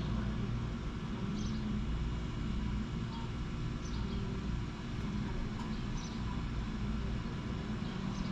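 A vehicle engine idling steadily, with short bird chirps now and then.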